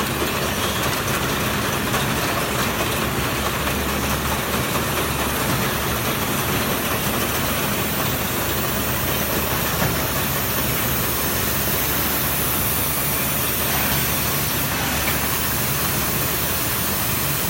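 Steady machine noise of a running fruit grading and packing line: conveyor belts, their drive motors and roller conveyors, with a low hum under an even mechanical din.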